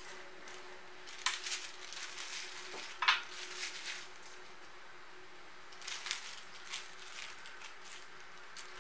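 Measuring spoon clicking and clinking as spices are spooned into a zip-top plastic bag, with light handling of the plastic bag. A few sharp clicks, the loudest about a second in and again about three seconds in, and a small cluster near the middle.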